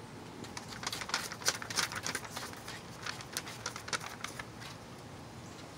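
Corgi's claws clicking and pattering on wooden deck boards: a run of quick, irregular taps starting about half a second in and lasting about four seconds.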